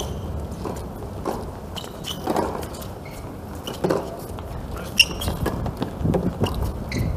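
Tennis rally on a hard court: racket strikes and ball bounces as short knocks, with players' footsteps between them. The sharpest crack of a hit comes about five seconds in.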